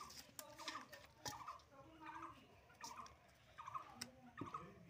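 Faint domestic poultry calling in short, rapidly pulsed bursts, repeated several times, with a few sharp taps in between.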